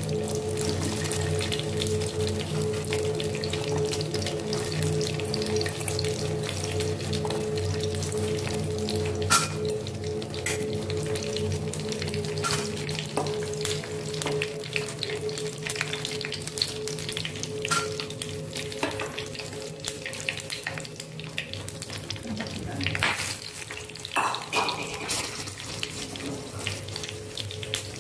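Fresh red chillies, washed and put in still wet, sizzling in hot oil in a frying pan, with scattered sharp crackles that grow louder near the end.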